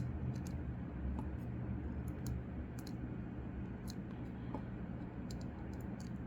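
Irregular light clicks and taps as a small push button's metal leads are fitted into the holes of a printed circuit board and handled, over a steady low hum.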